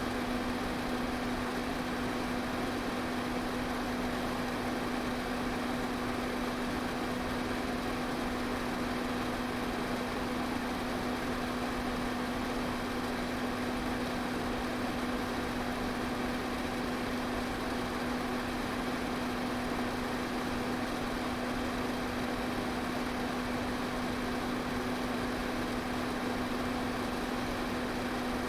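Electric fan running steadily: a constant motor hum over an even rush of air.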